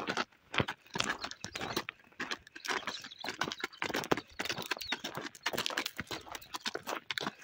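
Donkey's hooves and people's footsteps crunching on a gravel track, an irregular run of steps while walking.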